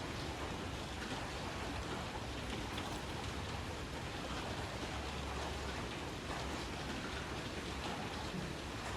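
Steady rain pattering on a metal roof, a dense even hiss scattered with the ticks of single drops.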